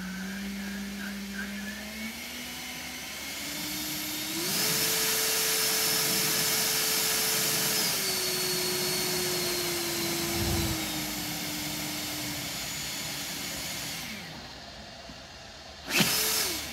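EGO 650 CFM cordless leaf blower driven by a retrofitted cheap BLDC motor controller: the motor's whine climbs in steps to full speed with loud rushing air, holds for a few seconds, then steps back down and winds off. Near the end it gives one short burst, rising and falling away.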